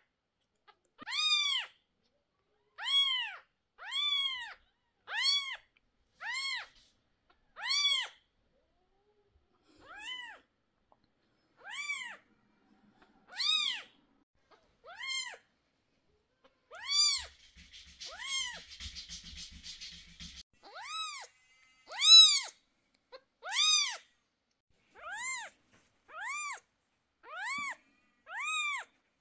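An 11-day-old kitten mewing over and over, about one short cry a second, each rising and then falling in pitch: distress cries while it is held for eye drops and has its sore eyes wiped. About two-thirds of the way through there are a few seconds of scratchy rustling.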